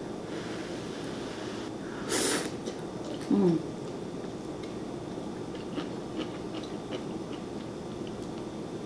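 A person eating noodle soup with chopsticks: a short rush of breath over the noodles about two seconds in, a brief falling "mm" a second later, then quiet chewing with small wet mouth clicks.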